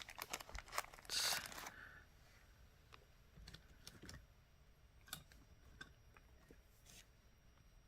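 Small beads being handled and laid out: a faint plastic-bag crinkle in the first two seconds, then scattered light clicks of beads set down on the work surface.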